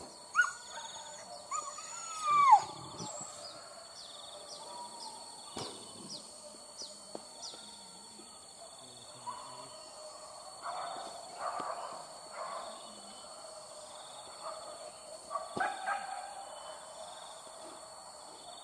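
Hunting dogs whining and yelping in short bursts, with a loud falling whine about two seconds in, over a steady high-pitched drone.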